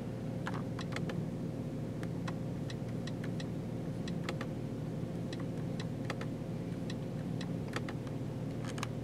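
Irregular light clicks of the car's infotainment controls being pressed while paging through menus, over a steady low hum inside the cabin.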